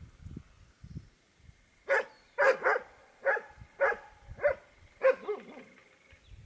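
A dog barking about seven times in quick succession, roughly twice a second, starting about two seconds in.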